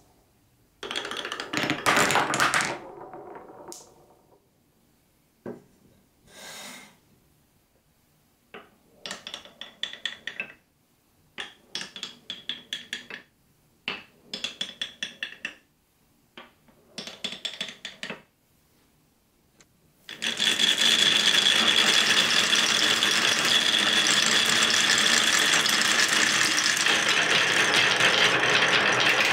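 Glass marbles on a wooden block marble run: a short clatter of marbles rolling through the wooden channels, then several brief runs of quick clicks as marbles knock against one another on the wooden rails. From about two-thirds in, a continuous dense rattle of many marbles rolling down the wavy wooden tracks together.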